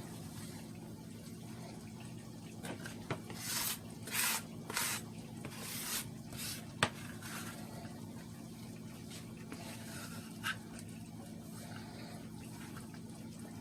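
Vegetables going into a pot of simmering liquid: several short splashing swishes, then a sharp clink of a utensil on the pot, over a steady low hum.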